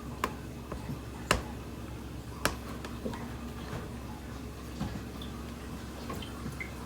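A few sharp clicks over quiet room noise: three louder ones about a second apart in the first half, then a few fainter ticks.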